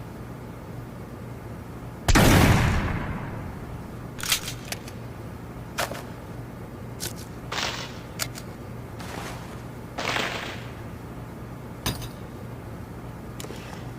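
A single musket shot about two seconds in: a loud blast with a long fading tail, followed by a scattering of quieter clicks and short bursts of noise.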